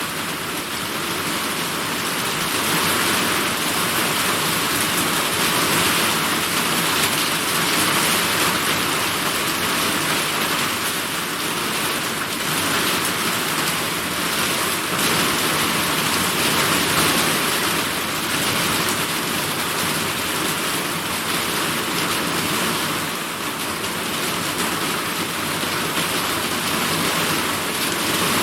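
Steady heavy summer rain pouring down, its hiss gently swelling and easing.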